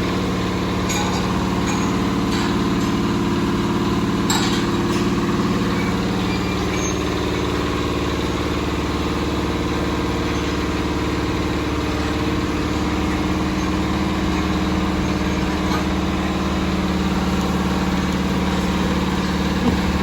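A steady low mechanical hum, like an engine or motor running at an even speed, with a few faint clicks over it.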